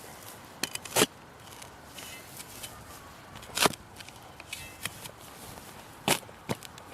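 Spade digging into dry, stony soil: a few sharp strikes and scrapes, the loudest about a second in, midway and near the end.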